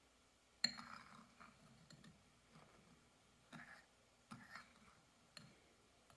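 Kitchen utensils tapping and scraping against a ceramic bowl and glass canning jars while foam is skimmed off grape juice: one sharp click about half a second in, then a handful of softer taps and scrapes.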